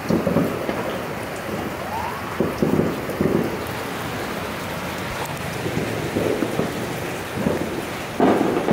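Distant New Year fireworks going off: irregular booms and pops with rumbling tails, loudest at the start and near the end, over steady rain falling on surfaces. There is one short rising whistle about two seconds in.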